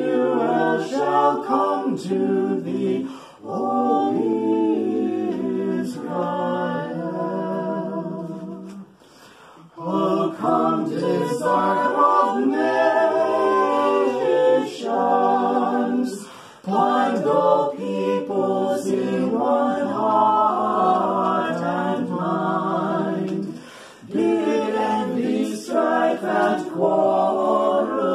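Five-voice a cappella ensemble (soprano, two altos, tenor, bass) singing a Christmas carol in harmony, in phrases broken by short breaths, the longest pause about nine seconds in.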